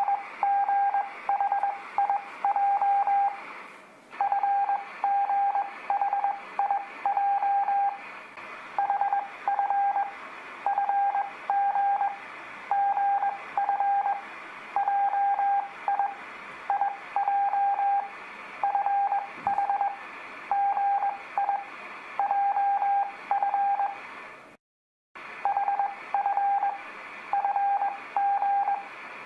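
Morse code (CW) practice tones: a single steady beep keyed in dits and dahs, sending the letters F, G, H, I and J mixed together in a random order, one character about every second, over a faint hiss. The sound cuts out completely for a moment about three quarters of the way through.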